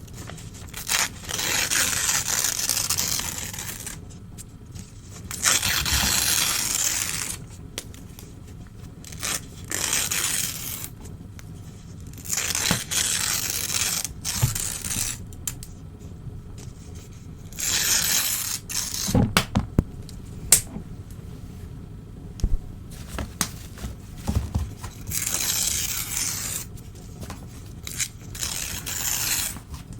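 Old newspaper being torn by hand, one rip after another, each tear lasting a second or two with short pauses between. A run of sharp crackling snaps comes about two-thirds of the way through.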